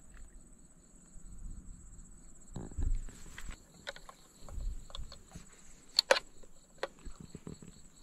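Night insects chirping in a steady, high-pitched, finely pulsing trill. Scattered sharp clicks and knocks of gear being handled sound over it, the loudest about six seconds in.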